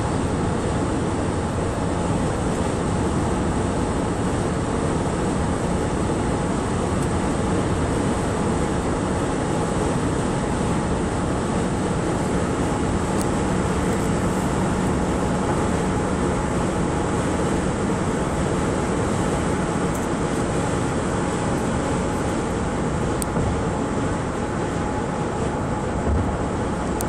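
Steady road noise inside a car cruising at highway speed: an even rumble of tyres and engine with a faint constant hum.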